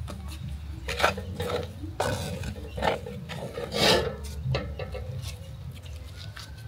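Irregular scraping and rubbing, with a few louder strokes about one, two and four seconds in, as the finished rice and millet fufu is scooped and packed.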